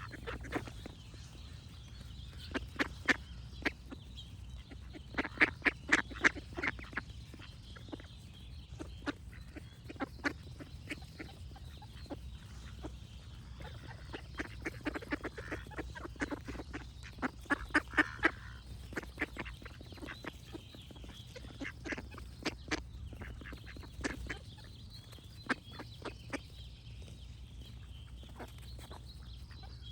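Ducks quacking in clusters of quick, sharp calls, with faint birdsong behind them.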